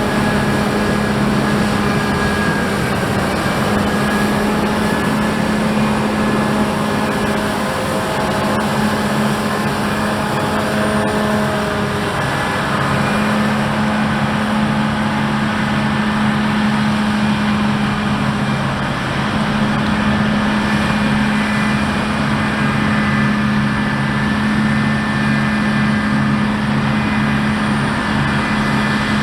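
Claas Lexion 8700 combine harvester running steadily while harvesting, a deep, even engine drone with a constant pitch over the noise of the machinery.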